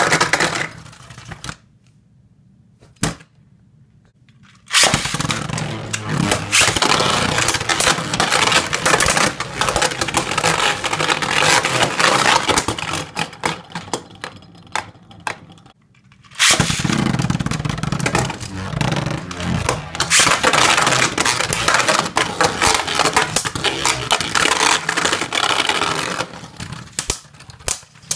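Plastic Beyblade Burst spinning tops battling in a Hasbro Rail Rush Beystadium: a dense clatter of hits and scraping against each other and the stadium begins suddenly about five seconds in and stops near sixteen seconds. A second battle starts right after and thins out to a few clicks near the end.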